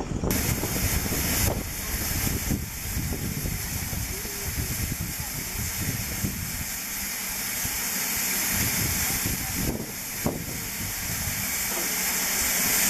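BR Standard Class 4MT 2-6-0 steam locomotive standing with steam escaping in a steady, loud hiss, over a low rumble, with a few faint knocks.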